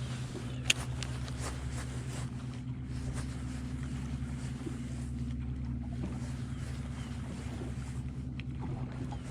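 Boat motor running at a steady hum, with one sharp click under a second in.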